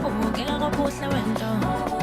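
Dance music from a DJ mix: a song with a sung vocal line over a steady bass.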